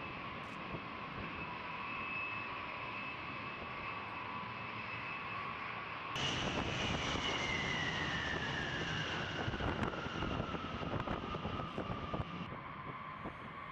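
Boeing B-52H bomber's eight TF33 turbofan engines at takeoff power as it lifts off and climbs away: a steady jet whine, then about six seconds in a sudden jump to a louder, rougher roar with a whine falling steadily in pitch as the aircraft passes.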